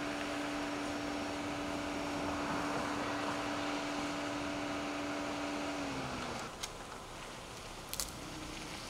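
A steady machine hum over a noise haze that dips slightly in pitch and stops about six seconds in, followed by a few sharp clicks.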